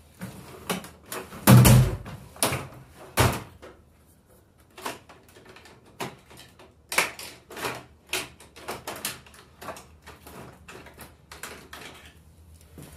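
Someone rummaging through hand tools to find a small screwdriver: a string of knocks, clunks and clicks, the loudest between about one and a half and three and a half seconds in, then a run of lighter clicks.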